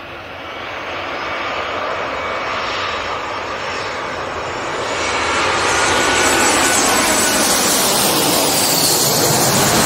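Air Seoul Airbus A321 jet airliner on landing approach passing low overhead, its engines growing steadily louder to a loud roar in the second half, with whining tones that slide down in pitch as it passes.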